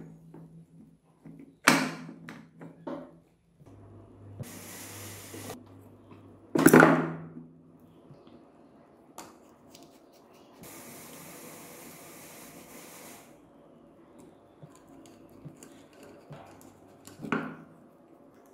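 Metal engine parts being handled during hand disassembly of a three-wheeler engine: a few knocks and clunks, the loudest about seven seconds in, with small scrapes and two short stretches of hiss.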